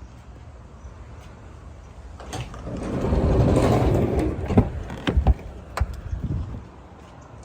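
Sliding side door of a Ram ProMaster cargo van rolling along its track: a rising rumble over a couple of seconds, then several sharp metallic clunks as it comes to rest and latches.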